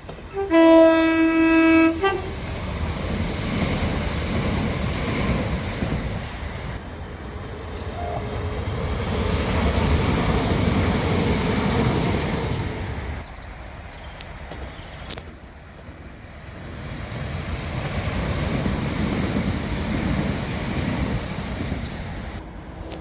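Train horn sounding one steady tone for about a second and a half, followed by the rumble and wheel noise of a passing train that swells and fades; after a short lull another train passes, swelling and fading again.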